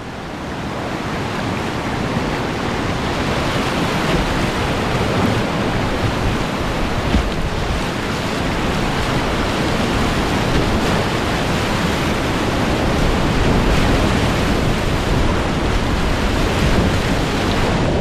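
Whitewater rapids rushing in a steady, dense roar, heard close up from a kayak running them, growing gradually louder as the boat moves down into the rapid.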